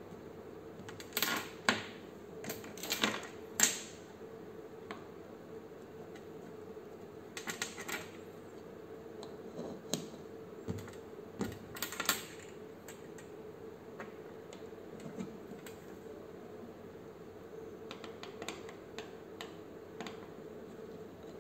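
Jumper-cable plugs being pushed into the sockets of an electronics trainer panel: irregular sharp clicks and taps, some in quick runs of two or three, over a faint steady hum.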